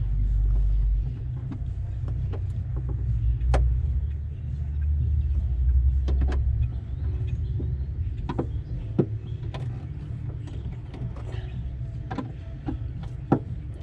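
Scattered light clicks and knocks of hand tools working on metal, over a steady low rumble.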